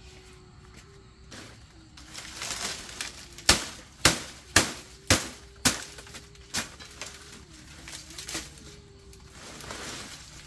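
A run of six sharp knocks or chops about half a second apart, a few seconds in, over a faint steady wavering hum.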